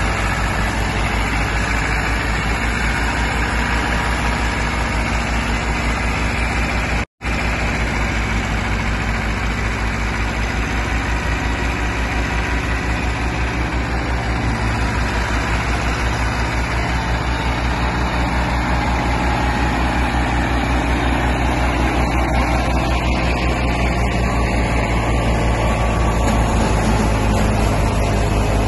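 Massey Ferguson 385 tractor's diesel engine running steadily under load, belt-driving a wheat thresher whose drum and fan add a dense, even rushing noise. The sound cuts out for a split second about seven seconds in.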